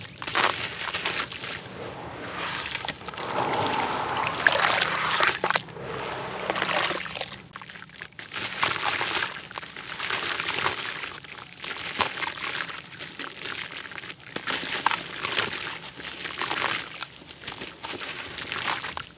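Dried red-dirt blocks crumbled by hand into a basin of water: gritty crunching of the dirt with sloshing, and grains pouring and trickling into the water, in repeated waves.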